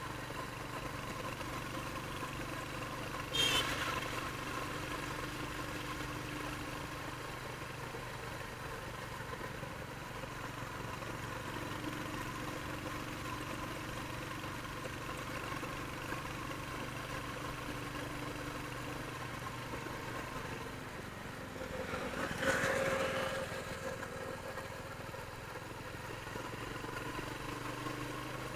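Royal Enfield Hunter 350's single-cylinder engine running steadily at idle through its stock exhaust. A sharp, short noise comes a little over three seconds in, and a brief louder burst comes about twenty-two seconds in.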